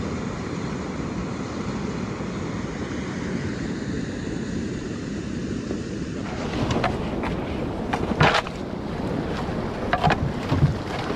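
Steady rushing of river water pouring over a weir. About six seconds in, it gives way to a canoe running whitewater: churning water with several sharp splashes and wind buffeting the microphone.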